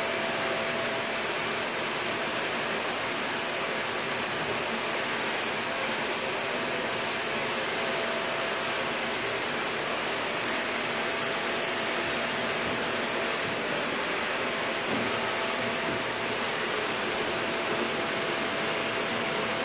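Steady, even rushing noise with two faint steady tones in it, one low and one high.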